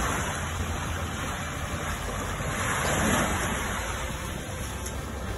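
Small sea waves washing up onto a sandy beach, a steady rushing that swells about three seconds in, over a low rumble.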